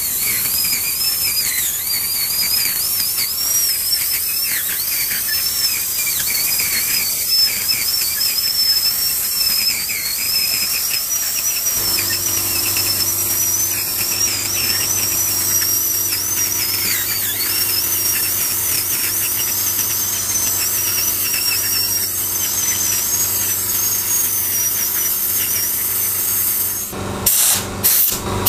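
High-speed dental drill whining as its bur cuts away decay from a tooth, the whine wavering in pitch as it bears on the tooth, with a hiss over it. About twelve seconds in a low steady hum joins, and near the end the drill cuts out and in a few times.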